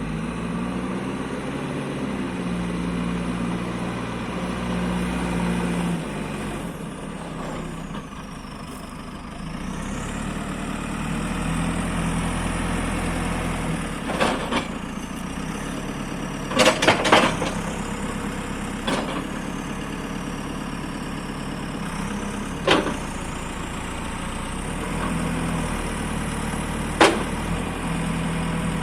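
JCB 3CX Super backhoe loader's diesel engine running, its note stepping up and down several times as it takes load. Several sharp knocks cut through it, with a quick cluster a little past the middle.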